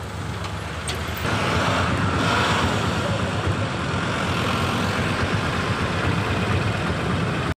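Road traffic passing close by: a truck and then a motorcycle driving through on a wet road, engines running over a steady hiss of water jetting from a burst water-supply pipe. The sound grows louder about a second in and cuts off suddenly near the end.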